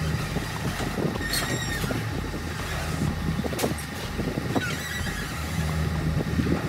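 New Holland wheel loader's diesel engine running steadily at idle, with a couple of sharp knocks about one and a half and three and a half seconds in.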